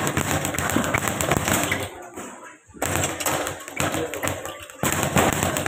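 Speed bag being punched rapidly, rattling against its rebound platform in a fast, continuous drumming. It breaks off for under a second about two seconds in, then starts again.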